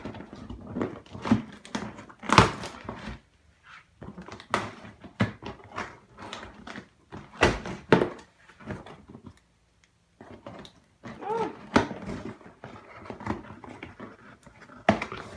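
Cardboard shipping box being opened and handled by hand: irregular knocks, crinkles and rustles, with short gaps between them.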